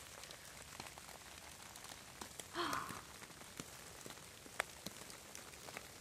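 Rain falling faintly on wet leaf litter, a steady patter with scattered ticks of single drops. A brief human voice sound comes about halfway through.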